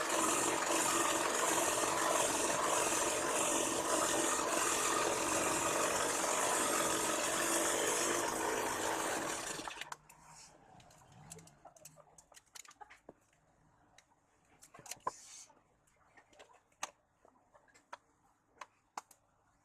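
Homemade band saw running steadily with a constant motor hum, stopping about ten seconds in; after that come scattered light clicks and knocks.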